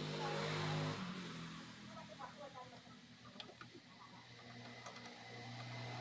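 A steady low mechanical hum, loud at first, fading after about a second and swelling again near the end, with a few faint clicks as wire connectors are worked on the washing machine's heating element terminals.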